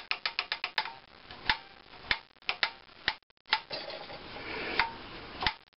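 Light metal clicks from hands and tools at an old engine's rocker arm and valve springs as they are oiled. A quick run of about eight clicks comes in the first second, then single ticks every second or so.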